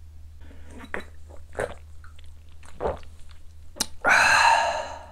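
A shot of soju being downed: soft swallowing sounds, then a loud breathy exhale about four seconds in, lasting about a second.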